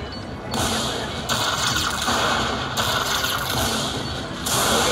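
Casino floor background din: a dense, steady wash of crowd and machine noise that shifts abruptly in level every second or so.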